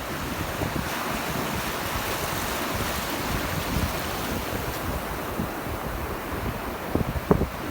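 Sea surf washing steadily onto the beach, with wind buffeting the microphone and a few sharp gusts near the end.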